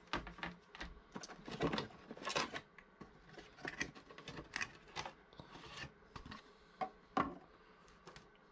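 Cardboard packaging being handled: a cardboard insert scraping and rubbing against the box as it is pulled out, in irregular bursts, loudest around two seconds in and again about seven seconds in.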